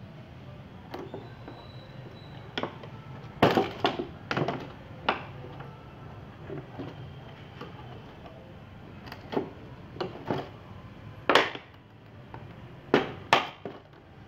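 Irregular sharp knocks and crackles from a large empty plastic water jug being handled and turned on a concrete floor, about a dozen in all, the loudest about a third of the way in and again near the end.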